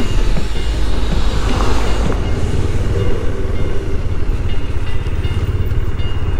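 Motorcycle engine running steadily while riding along a road, with a heavy low rumble of wind over the microphone.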